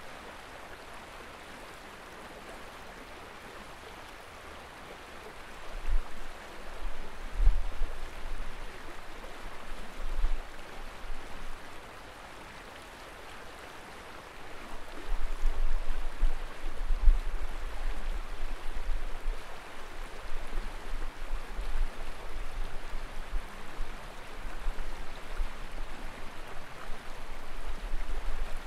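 Steady outdoor hiss of flowing river water, with wind gusting on the microphone as low rumbles, a few around a quarter of the way in and almost continuously through the second half.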